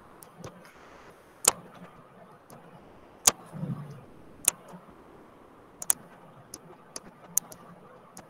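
A string of sharp, single clicks at uneven intervals over faint hiss, the loudest about one and a half, three and a quarter, and four and a half seconds in.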